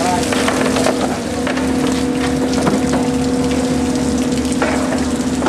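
Water spattering and running off fish being handled in plastic crates, with a steady mechanical hum underneath and a few light knocks.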